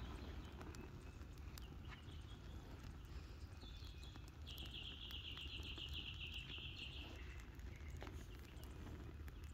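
Fire burning in the top of a charred tree stump, with faint scattered crackles over a low steady rumble. About four seconds in, a rapid high-pitched trill sounds for about three seconds.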